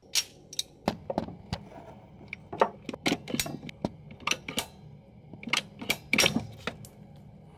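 BrassCraft ratcheting plastic-pipe cutter being squeezed shut on PEX tubing, giving a run of irregular sharp clicks as its blade works through the pipe, loudest about six seconds in.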